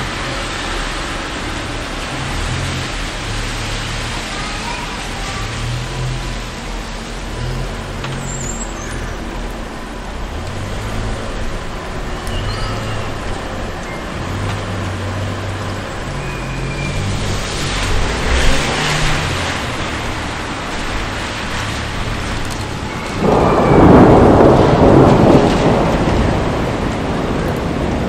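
City street traffic ambience: a steady wash of traffic noise with engine rumbles rising and fading as vehicles pass. A sudden, louder rush of noise comes in near the end and lasts a few seconds.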